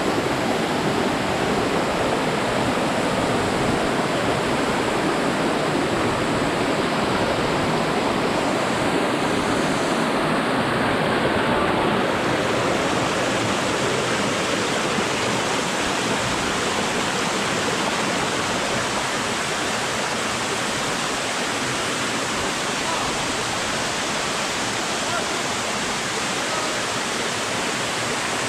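Rushing water of a rocky mountain stream tumbling over boulders, a steady, unbroken rush.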